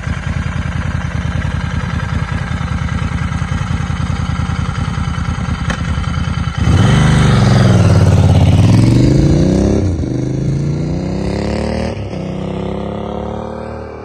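Royal Enfield Interceptor 650 parallel twin, bored out to 865 cc with an S&S big bore kit and breathing through a large-diameter handmade exhaust. It runs steadily at low revs, then about six and a half seconds in pulls away loud, revving up through the gears with two upshifts as it passes, and fades into the distance near the end.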